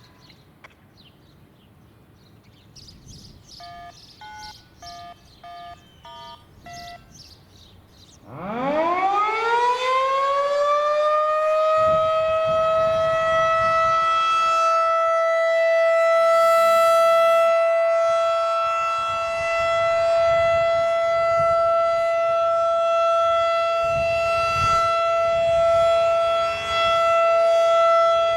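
Federal Signal 2001-DC battery-powered siren winding up about eight seconds in, its pitch rising fast and then holding one loud steady tone during a routine siren test. Just before it, a quick run of about six short electronic beeps.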